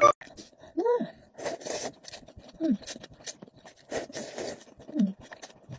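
Three short vocal sounds, each sliding down in pitch, about a second, two and a half seconds and five seconds in, with rustling, scraping and clicking noises between them.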